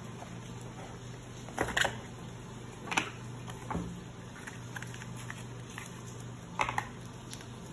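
Rigid cardboard gift box and inner tray handled on a wooden table: pieces pulled apart, slid and set down, giving a few short knocks and scrapes spread through, over a low steady hum.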